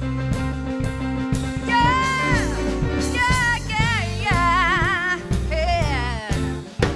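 Live band of keyboards, bass and drums playing a slow soul groove while a woman sings long notes with heavy vibrato.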